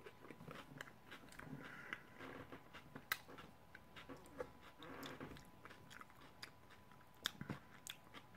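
Person chewing a crunchy fried-tortilla tostada topped with lettuce and tomato, with small crackling crunches and wet mouth sounds. Sharp crunches stand out about three seconds in and again near the end.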